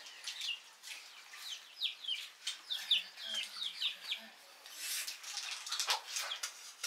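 Chickens calling: a run of short, high cheeping and clucking calls, several a second.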